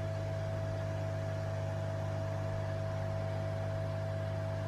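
Hot air rework station blowing steadily onto a circuit board to reflow solder paste: an even hiss of airflow with a steady hum from the blower.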